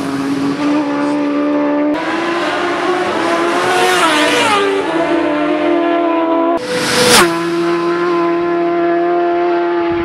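Racing motorcycles at high revs on a road course. One bike's engine pitch drops sharply as it flashes past about seven seconds in. A few seconds earlier the engine note rises and falls through gear changes, and the sound cuts abruptly between passes.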